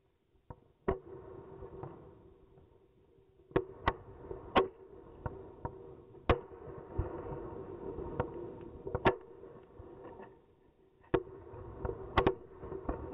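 Blackboxx Knallbär firework battery, tipped off its base, firing on the ground: a string of irregular sharp bangs, several seconds apart at times and bunched at others, over a continuous hiss and crackle.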